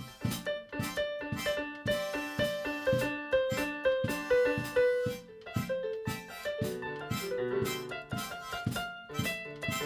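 Instrumental music led by a keyboard or piano, with notes struck in a steady rhythm.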